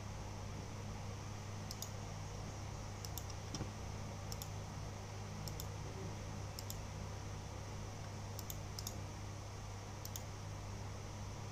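About nine sparse clicks of keys or buttons being pressed, each a quick double click, at irregular spacing. They sit over a steady low hum and faint hiss.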